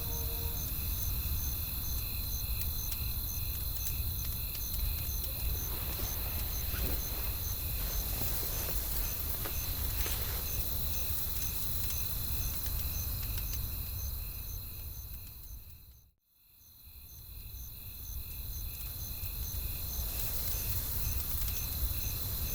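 Night-time ambience of crickets chirping in a steady, evenly spaced rhythm over a low rumble of wind, with the scattered light pops of a wood fire crackling. The whole bed fades out to near silence about two thirds of the way through, then fades back in.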